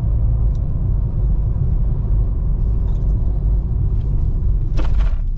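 Steady low rumble of a moving car, engine and tyre road noise heard from inside the cabin, with one brief sharper noise near the end.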